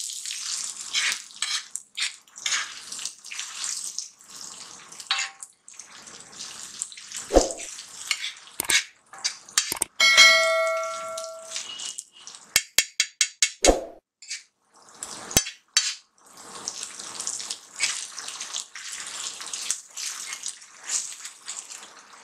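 Steel spatula scraping and stirring chopped onions frying in oil on a tawa, over a steady sizzle. About ten seconds in, the spatula strikes the pan with a ringing clang that dies away over a second or so. A few quick sharp taps follow.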